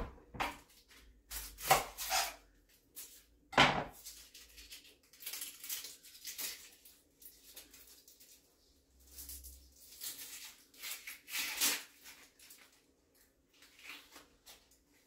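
A large onion being cut and peeled on a cutting board: scattered knife knocks on the board, a sharp one about four seconds in, and stretches of rustling from the dry onion skin. A faint steady hum runs underneath.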